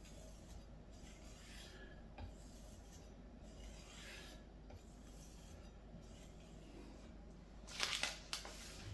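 A Ryuko santoku blade stroked back and forth over a cow-leather strop, a steady run of soft rubbing strokes: the final stropping that follows the 3000-grit stone and removes the burr. Near the end, a louder clatter of knocks.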